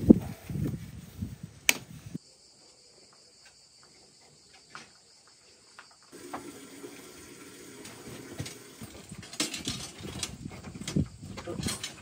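Steel rebar being tied and handled: tying wire twisted round the bars with pliers, a run of metal clicks and scrapes for about two seconds. After a quiet stretch, more clicks and knocks from about three-quarters through as a rebar cage is set against the stone wall.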